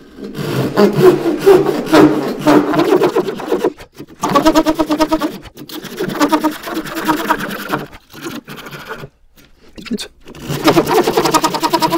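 A fine-toothed handsaw sawing a Valchromat (coloured fibreboard) shelf board by hand in quick rasping strokes. It pauses briefly twice, falls silent for about a second and a half near the end, then starts a second cut.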